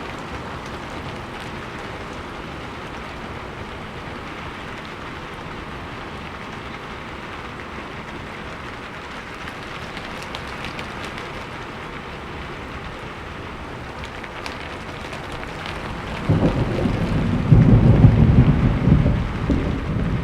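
Steady rain falling, an even hiss with fine drop ticks. About three-quarters of the way in, a deep rumble of thunder breaks in suddenly and swells, rolling on through the end.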